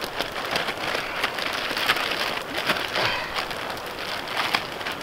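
Wood campfire crackling: many sharp pops and ticks over a steady hiss.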